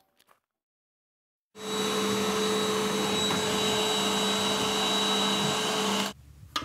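A canister vacuum cleaner running steadily. It cuts in suddenly after about a second and a half of silence and cuts off abruptly near the end.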